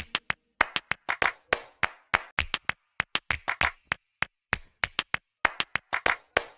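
Background music at a percussion-only break: quick sharp claps and drum hits with no melody.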